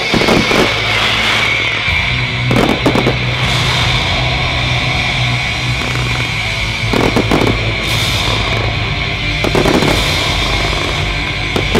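Loud music with held notes and a bass line, while fireworks shells go off over it in a few bursts of booms and crackles: at the start, a little under three seconds in, about seven seconds in and near ten seconds in.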